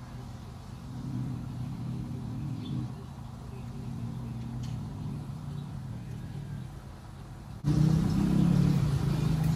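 A low motor hum with a steady pitch, which becomes abruptly louder near the end.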